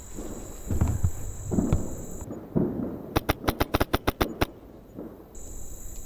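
HPA airsoft rifle firing a rapid string of about ten sharp shots, around seven a second, about three seconds in. A couple of dull thumps come before it.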